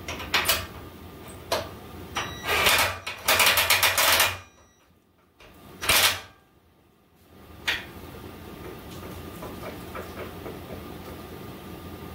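Socket ratchet clicking in fast runs about two to four seconds in, tightening a bolt on a truck's rear suspension track bar, with scattered metal clinks and one louder clack about six seconds in.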